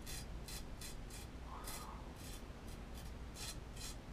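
A ceramic chef knife's blade scraping through beard whiskers in short shaving strokes, about two to three a second.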